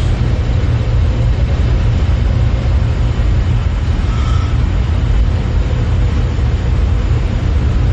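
Steady low rumbling drone of a spaceship's interior ambience in a sci-fi TV soundtrack, even in level throughout.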